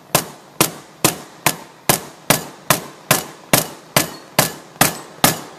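A mallet tapping a freezer-chilled sealed bearing down into a John Deere mower deck spindle housing, driving it in without a press: a steady run of about a dozen sharp strikes, a little over two a second.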